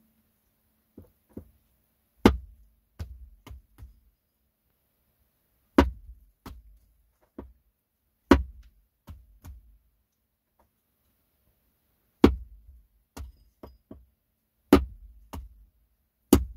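A wooden mallet striking the spine of a knife to drive the blade down into a wooden stump. There are about six hard knocks, each followed by two or three lighter taps.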